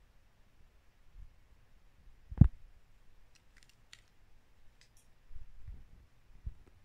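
A single sharp thump about two and a half seconds in, followed by a few faint clicks and some soft low bumps and rustles near the end.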